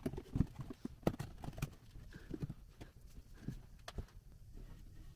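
Scattered light knocks and clicks as the parts of an MGB heater box are handled and positioned, irregular taps with the sharpest about a second in.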